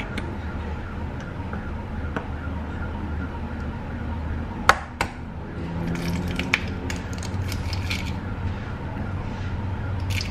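An egg tapped twice sharply against the rim of a non-stick frying pan about halfway through, followed by the shell crackling as it is pried open over the pan. A steady low hum runs underneath.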